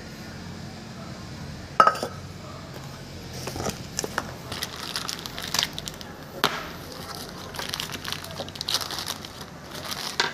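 A sharp knock about two seconds in, then plastic packaging crinkling and rustling in short, irregular bursts as a small plastic-wrapped packet of parts is handled.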